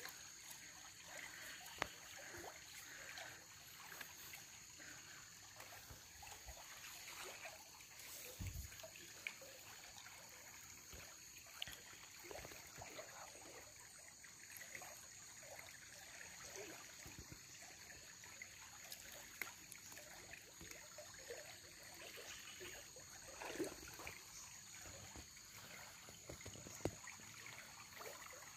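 Faint trickle of a shallow stream, with scattered small clicks and rustles from a woven fish trap being handled and tied shut.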